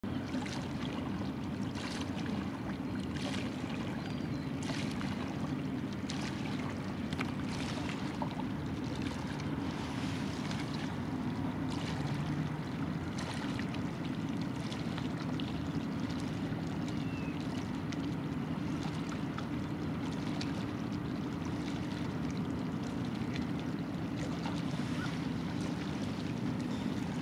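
Steady low drone of a motor cruiser's engine running across open water, with a few faint ticks above it.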